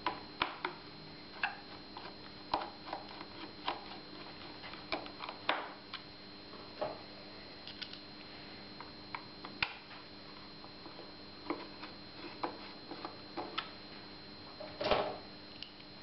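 Irregular small metal clicks and taps of screws and a screwdriver as a cover plate is screwed back onto an electric trials bike's frame, with a louder clatter of handling about fifteen seconds in.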